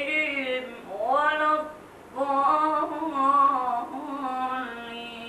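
A boy's voice in melodic Quran recitation (tajwid), drawn-out ornamented phrases sung on long vowels. There are short breaks for breath about one and two seconds in, then one long phrase that settles onto a held lower note and fades near the end.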